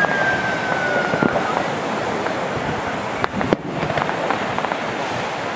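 Consumer fireworks going off: a thin falling whistle over the first second and a half, then two sharp bangs a little over three seconds in, with smaller pops and crackles scattered throughout.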